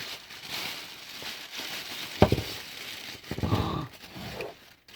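Paper wrapping crinkling and rustling as a packed item is unwrapped by hand, with one sharp knock about two seconds in.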